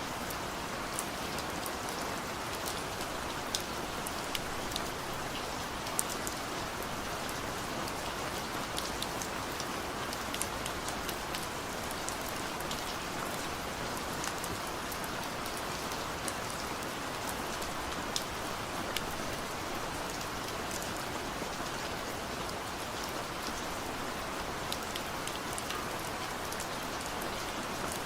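Steady rain falling, a continuous hiss with many individual drops ticking sharply on a surface.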